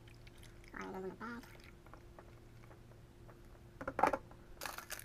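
Plastic coffee packet being handled, crinkling in short bursts near the end, after a brief murmured voice sound about a second in. A faint steady hum runs underneath.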